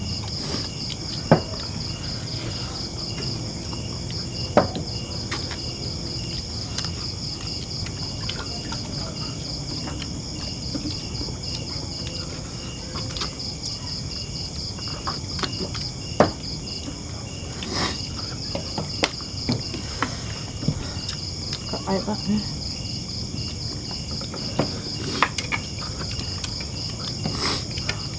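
Night insects chirping in a steady, high, evenly pulsing chorus, with scattered sharp clicks and clinks from plates and cups at the table.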